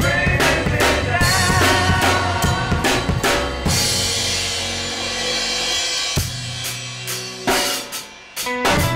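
Acoustic drum kit played in a rock beat, with kick and snare strokes coming steadily. About four seconds in, a cymbal crash rings out, and the playing thins to a few separate hits.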